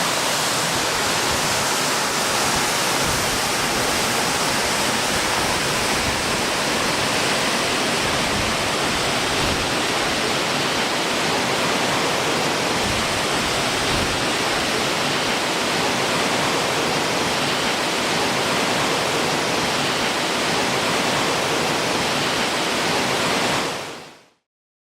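Steady roar of a large waterfall, falling water rushing without a break, fading out near the end.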